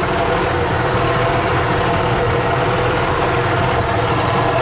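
Two-cylinder gas engine of a 1995 EZGO Workhorse utility cart running steadily while the cart drives, with a mechanical rattle over the engine note. It is acting a little fussy, which the owner thinks might be because it doesn't like the old gas.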